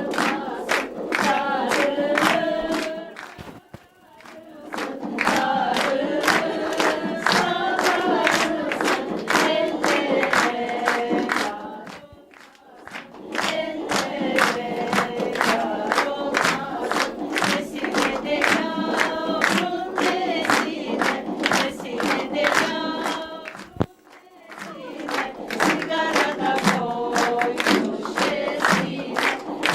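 Background music: group singing over a steady percussive beat, with short breaks about four, twelve and twenty-four seconds in.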